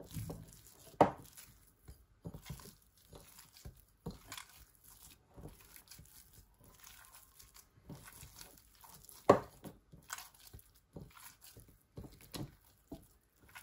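Hands kneading a soft, oily milk-powder dough in a glass bowl: faint, irregular squishing and crackling, with a couple of sharper clicks, the loudest about two-thirds of the way through.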